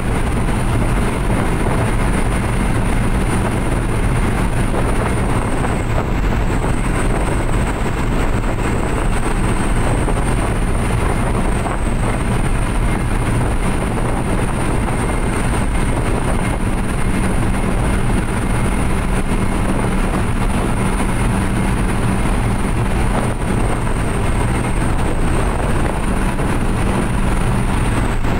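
Suzuki New Carry pickup heard from inside its cab while cruising at full speed with a load: a steady engine drone mixed with road and wind noise, holding even throughout.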